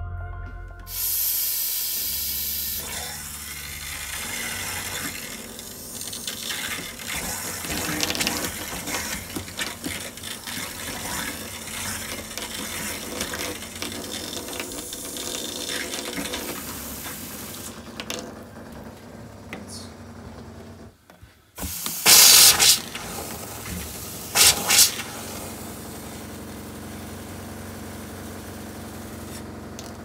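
Camper kitchen faucet running a stream of RV antifreeze into the sink, with the RV water pump running as it pushes the antifreeze through the plumbing lines to winterize them. Two short, much louder bursts come about two-thirds of the way through.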